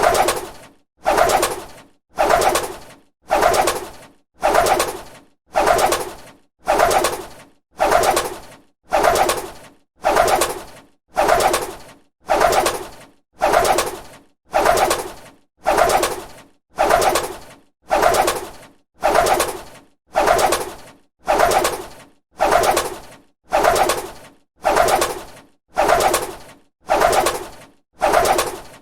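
A bird's wings flapping, one beat after another at an even pace of a little more than one a second. Each beat starts sharply and fades quickly.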